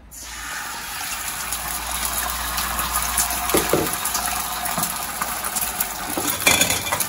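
Egg omelette mixture sizzling in a hot frying pan. The hiss starts suddenly as it goes into the pan and runs on steadily.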